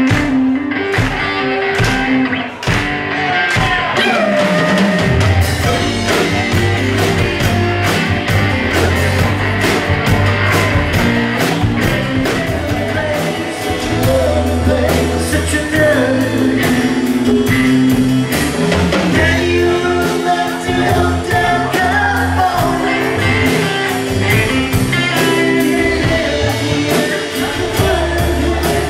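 Live rock band playing a song: a male lead singer over acoustic and electric guitars, bass and drums. The low bass comes in about five seconds in.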